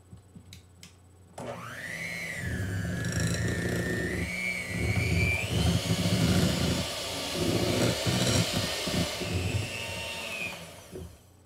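Electric hand mixer switched on about a second and a half in, its motor whining while the beaters churn a stiff butter and powdered-sugar cookie dough in a glass bowl; the whine climbs in pitch partway through, and the mixer stops near the end.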